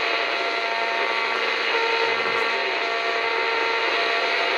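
FM static from a 1984 Emerson RC5806 clock radio's speaker as the dial is tuned between stations: a steady hiss with faint steady tones in it.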